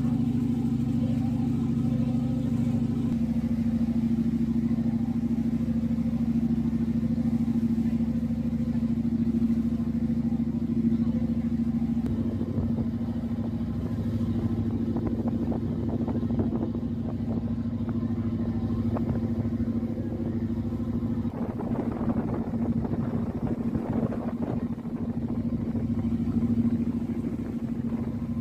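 A vehicle engine running at a steady speed, with a constant hum that does not change in pitch. Irregular rattling and knocking noises join it from about halfway through.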